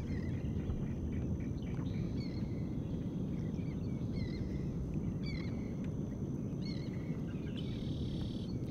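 Steady low outdoor background noise with small birds chirping, short up-and-down notes about once a second. Near the end a brief high buzz joins in.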